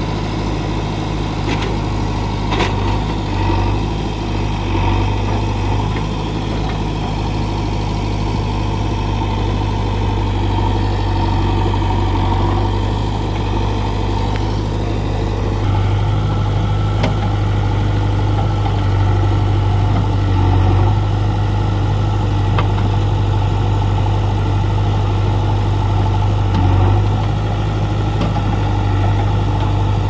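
JCB backhoe loader's diesel engine running steadily with a low drone as the machine works through the shallow pond. About halfway through the engine note steps up slightly, and there are a couple of sharp metallic clanks a few seconds in.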